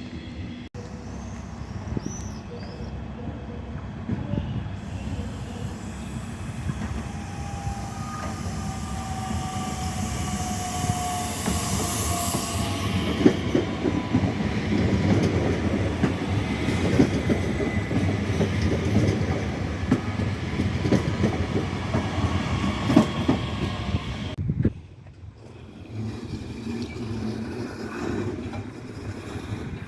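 Train rolling through a railway station: a steady rumble with faint, drawn-out wheel squeals, and a rattling clatter of wheels over rail joints that builds up through the middle. The sound drops off abruptly near the end and continues more quietly.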